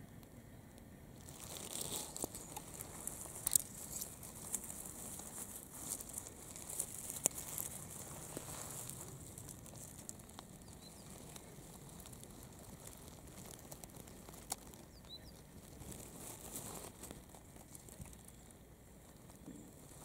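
Dry grass and leaves rustling and crackling as fingers part the plants close to the microphone, busiest in the first half, then settling to a faint background rustle.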